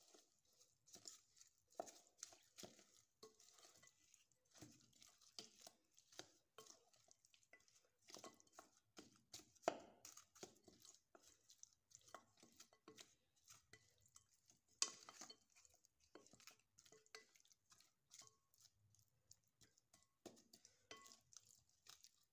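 Wooden spatula stirring spice-coated raw chicken wings in a glass bowl: irregular wet squishing of the meat and small clicks of wood against glass, with two louder knocks about ten and fifteen seconds in.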